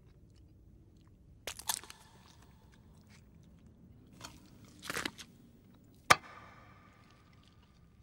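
Someone eating at a table: a few scattered bites and crunches, then about six seconds in a single sharp clink of tableware with a brief ring.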